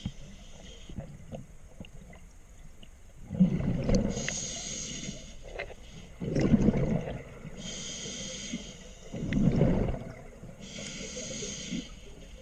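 Scuba diver breathing underwater through a regulator, alternating a hissing inhale through the demand valve with a bubbling rush of exhaled air. There are about three breaths, one every three seconds or so, after a quieter first few seconds.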